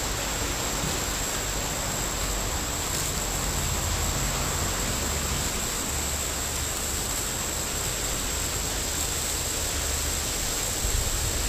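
Steady outdoor background hiss with a low rumble underneath and a thin, constant high whine. No distinct knocks or snaps stand out.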